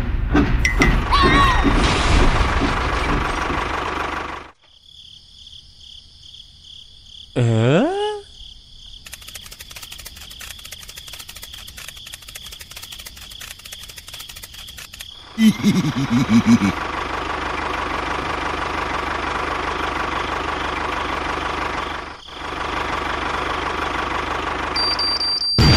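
A sequence of dubbed sound effects: loud rumbling noise at first, then a brief swooping cartoon-like glide and several seconds of very rapid clicking hammering. About two-thirds of the way in, an engine starts and runs steadily as a tractor engine sound.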